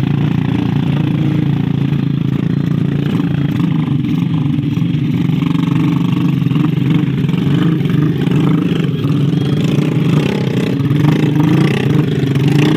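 Motorcycle engines running and revving hard under a heavy load of rice sacks, the bikes stuck in thick mud.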